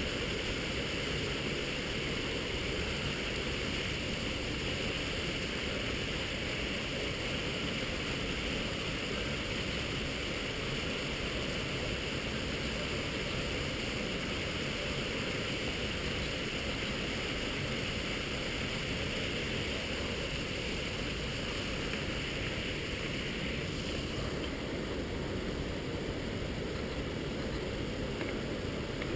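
Steady rush of falling water from a waterfall. About two-thirds of the way through, the higher hiss drops away and a lower, duller rush goes on.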